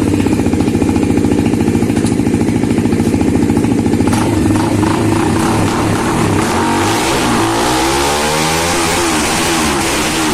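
Bajaj Dominar 250's single-cylinder engine running with the exhaust removed, super loud. It idles with an even pulse for the first few seconds, then is revved up and down several times in the second half.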